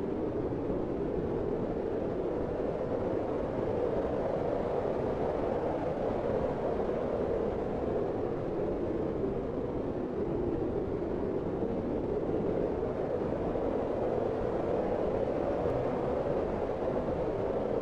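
Looped wind sound effect: a smooth, cold-sounding steady rush of wind, deepest in the lower middle range, swelling and easing gently.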